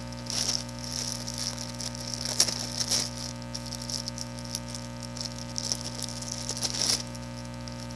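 Plastic wrapping crinkling and rustling as a monitor's power cord is unwrapped, with small clicks and crackles that stop about 7 seconds in. A steady electrical hum runs underneath.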